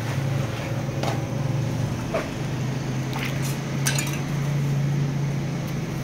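Stainless-steel plates and kitchen utensils clinking a few times over a steady low hum.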